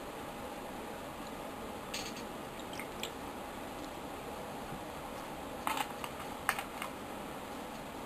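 A few light clicks and taps over a steady low hiss: a couple about two and three seconds in, then a tighter cluster of louder ones near the end.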